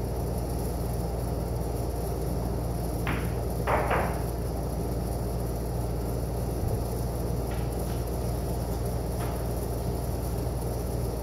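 Sharp clacks of pool balls, the cue striking the cue ball and balls knocking together: three clacks about three to four seconds in, the last two loudest, then two fainter clicks later. A steady low hum runs underneath.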